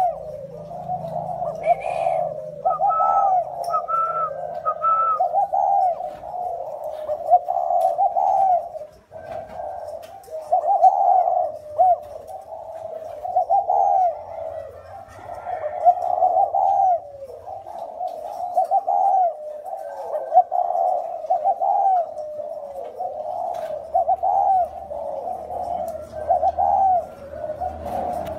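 Two caged spotted doves cooing steadily, phrase after phrase, their coos often overlapping. Keepers class one bird's call as the deep 'thổ' voice and the other's as the clear 'còi' voice.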